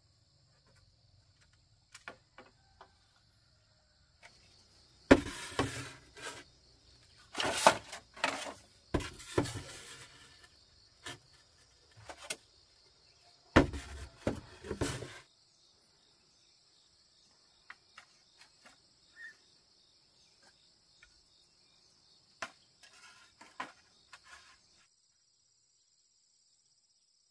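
Bamboo poles knocking and clattering against each other and the wooden frame as they are handled and fitted onto a coop roof, with a cluster of loud clatters in the first half and a few light knocks later. Insects drone steadily and high in the background.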